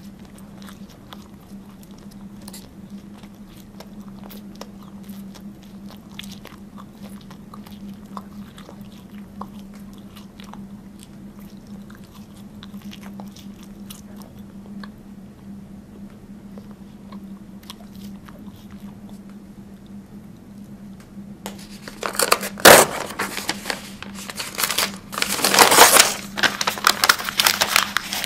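A person chewing a wad of paper in the mouth, with faint scattered wet clicks and crunches, over a steady low hum. After about twenty seconds the paper is bitten and pulled at by hand, giving loud crinkling and tearing with one sharp crack.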